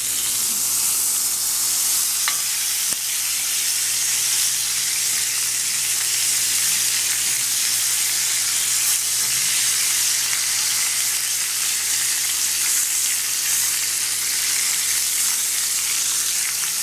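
Thick almaco jack fish steak sizzling steadily in hot oil and garlic in a cast iron grill pan.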